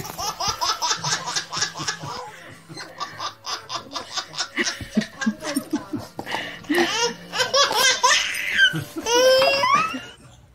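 Babies laughing in quick repeated bursts, breaking into high rising squeals near the end.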